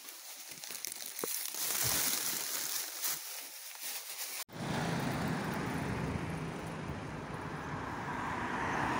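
Rustling with a few light knocks, then an abrupt cut about halfway through to road traffic: a steady rumble of cars at an intersection, with a car coming closer and getting louder near the end.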